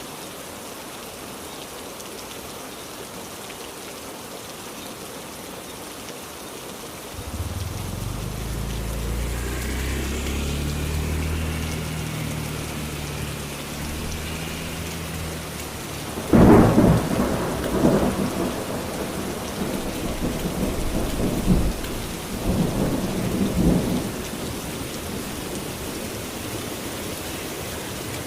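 Heavy rain falling steadily, with thunder. A low rumble comes in about a quarter of the way through. A loud thunderclap cracks just past halfway and rolls on in several rumbles that die down a few seconds later.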